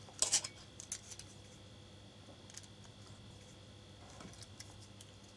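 Small metal clicks of a screwdriver working the screws of a Zero Tolerance 0350 folding knife during disassembly: a couple of sharp clicks near the start, then a few faint ticks, over a faint steady hum.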